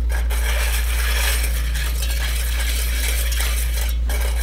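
Metal spoon stirring a sugar, cornstarch and water mixture in a stainless steel saucepan, with a steady gritty scraping and light clinking against the pot, over a constant low hum.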